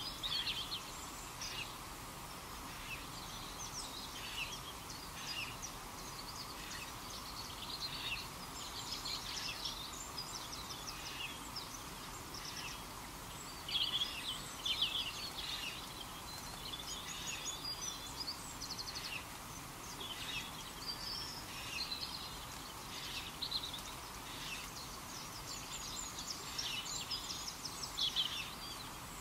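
Small birds chirping and singing in short, repeated trills and calls, over a steady background hiss.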